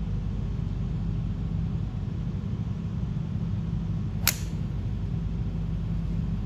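A golf club striking a ball: one sharp crack about four seconds in, over a steady low rumble.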